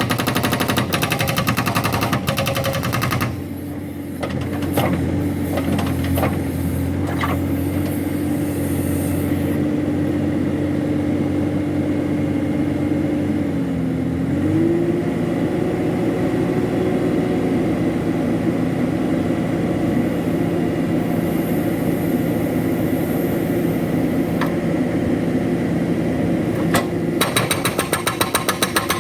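A backhoe-mounted hydraulic rock breaker hammering in rapid, even blows for about the first three seconds, then stopping. The backhoe's engine runs steadily with a few knocks, its pitch dipping and rising about halfway, before the breaker starts hammering again near the end.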